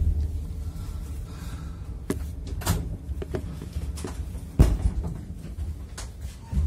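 Passenger train carriage running, heard from inside: a steady low rumble with scattered knocks and rattles, the loudest about two-thirds of the way through.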